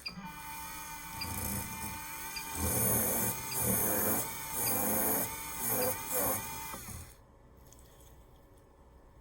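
Dental implant drill (a Cosmos osseodensification-style bur on a surgical handpiece) whining steadily as it cuts into bone. About five louder grinding bursts mark the bur being pumped in and out of the osteotomy in a rhythmic drilling motion. The drill stops about seven seconds in.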